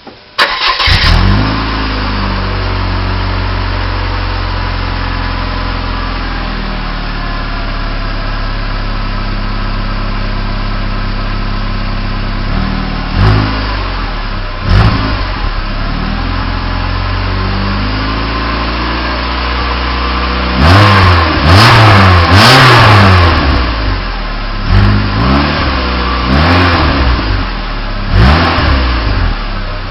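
1996 Saturn SL2's 1.9-litre four-cylinder engine running through its stock exhaust. It starts about half a second in, flares briefly and settles to a steady idle. It is blipped twice around the middle, then revved repeatedly near the end, the pitch rising and falling with each rev.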